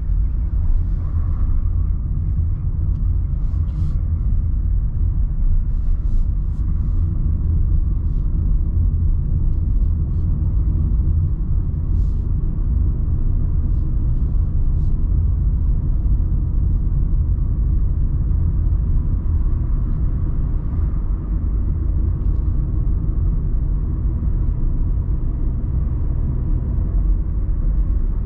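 Steady low rumble of a car being driven at town speed: engine and tyre noise heard from inside the car.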